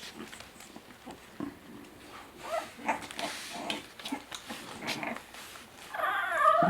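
A bulldog making a series of short vocal sounds, then a longer pitched sound near the end.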